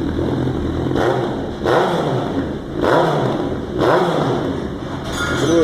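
Honda CB 1000's inline-four engine idling and blipped three times, each rev rising and falling back, through an aftermarket exhaust switched to its loud sport mode.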